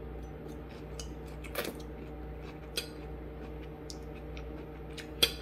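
Someone chewing a pan-fried green bean and handling a metal fork, a few sharp clicks and faint crunches over a steady low hum.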